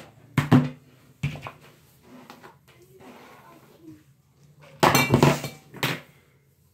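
Several sharp clatters and knocks of hard objects being handled: a couple of knocks in the first second and a half, then a louder run of clatters about five seconds in.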